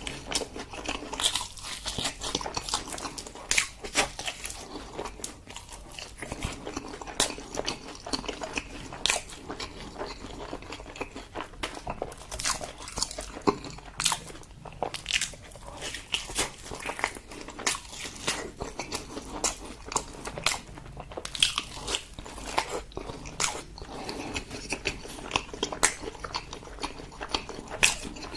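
Close-miked eating sounds: steady chewing with frequent sharp, irregular bites, crunches and wet mouth clicks.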